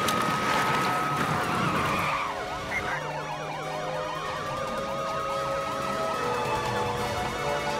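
Several police car sirens wailing and yelping over one another, over the rush of speeding cars. The sirens thicken into a dense overlapping chorus from about a third of the way in.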